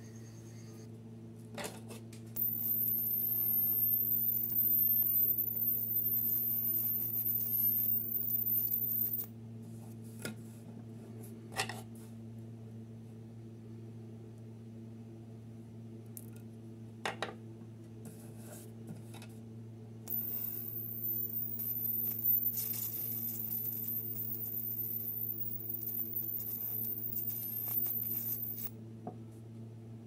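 Homemade plasma lighter driven by CCFL inverter transformers, its high-voltage arc running in two spells of several seconds each, a few seconds in and again about twenty seconds in: a hiss with a very high-pitched whine. Between the spells come a few sharp metallic clicks, over a steady low hum.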